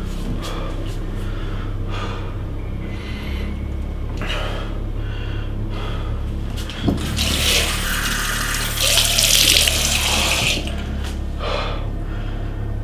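Water running from a tap into a bathroom sink, with scattered splashes, loudest for about three seconds past the middle. A steady low hum sits underneath.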